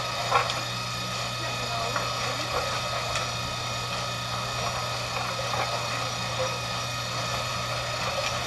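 Roofing ladder conveyor running with a steady mechanical drone as concrete roof tiles are loaded onto it, with a few short knocks of tiles being set onto the conveyor, the sharpest just after the start.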